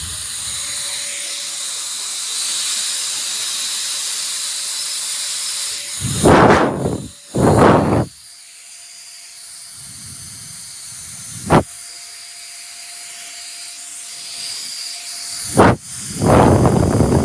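Small high-speed turbo fan (JISULIFE pocket fan) running: a steady rush of air with a thin motor whine. The whine sits a little higher and the rush is quieter after about 8 seconds. There are three loud bursts of blowing, two in the middle and one near the end, and a couple of sharp clicks.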